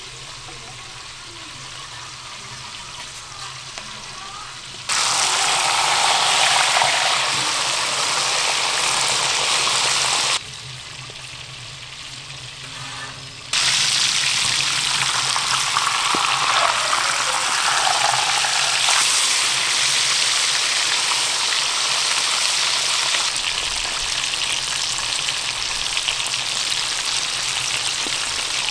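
Whole fish frying in shallow oil in a wide steel pan, a steady sizzle of bubbling oil. The sizzle is softer for the first five seconds and again for about three seconds just past ten seconds in. A wooden spatula moves the fish in the pan.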